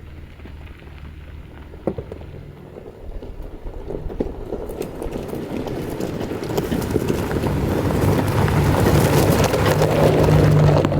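Ford Raptor pickup driving along a dirt trail, engine hum and tyre noise growing steadily louder.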